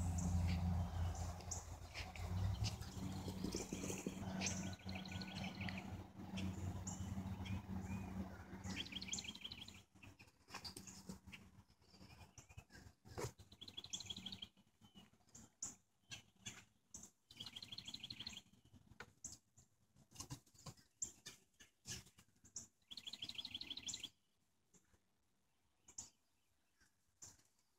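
A bird repeating a short, fast trill every few seconds, with scattered clicks and rustles throughout and a low steady hum that stops about a third of the way in.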